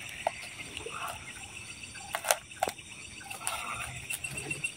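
Steady high chirping of night insects, with a few sharp clicks and soft rustles as hands rub and press against a tree trunk covered in dry leaves.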